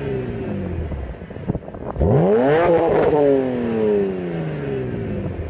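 BMW E90 330i's N52B30 straight-six free-revving through a BMW Performance exhaust with the car standing still. The revs fall away, then a quick blip about two seconds in sends them sharply up, and they sink slowly back toward idle.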